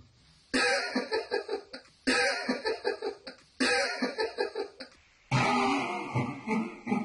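Hard fits of laughter, four of them, each starting abruptly and breaking into quick breathy pulses.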